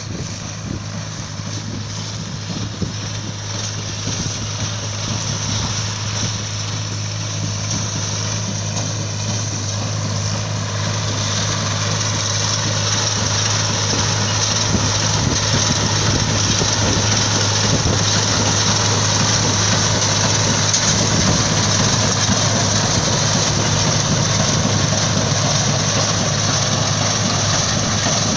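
Tractor engine running steadily while it pulls a working hay baler, a constant low drone under a broad rattle of machinery that grows louder over the first half and then holds.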